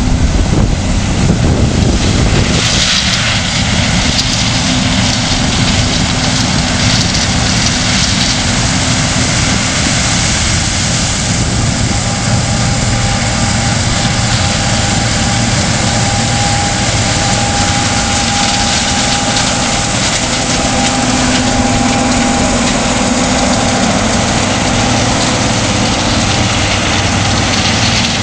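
Heavy farm machinery running steadily: a John Deere 9880i STS combine harvesting corn, with its engine and threshing machinery giving a continuous hum. In the first couple of seconds it is a John Deere 8200 tractor pulling a grain cart.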